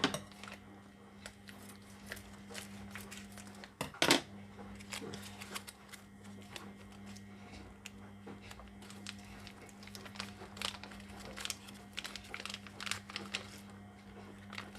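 Plastic packet of sea grapes being handled and crinkled, with scattered small clicks and one sharper knock about four seconds in, over a steady low hum.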